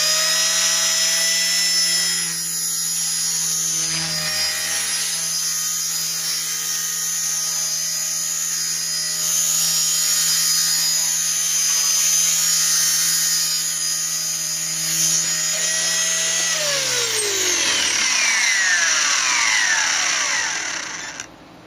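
Walkera Mini CP micro electric RC helicopter running in idle-up: the motor and rotor whine finishes rising in pitch as the head spools up, then holds a steady high whine through flight. Near the end it winds down, the pitch falling over a few seconds until it stops.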